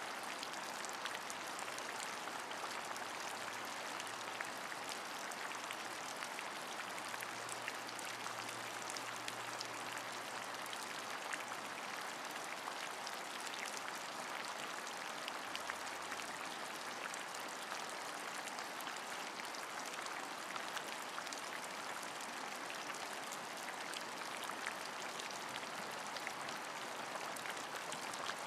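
Steady rain: an even hiss scattered with many small, quick drop ticks.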